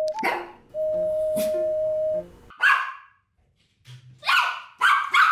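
Toy poodle barking at the door, several short high barks, mostly in the second half, over background music.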